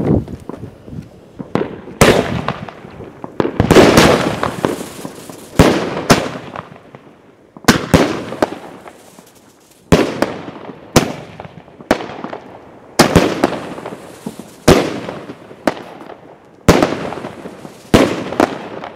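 Aerial fireworks bursting one after another: a long run of sharp bangs, one every second or two and sometimes two close together, each fading off with a crackling tail.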